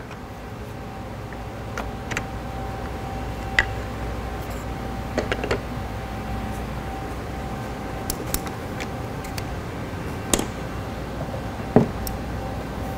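Scattered light clicks and knocks of plastic change-part keys being pulled off a bottle filler's guide rails and star wheel, over a steady background hum.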